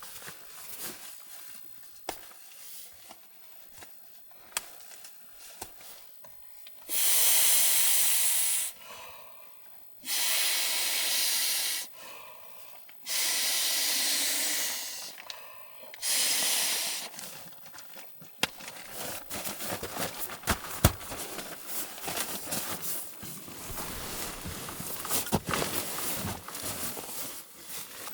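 Four separate bursts of hissing, each one to two seconds long, with short gaps between them. After them comes a run of small crackles and clicks.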